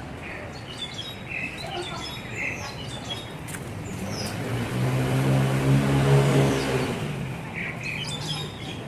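A motor vehicle passing by, its engine hum and road noise swelling to loudest about six seconds in and then fading, while small birds chirp.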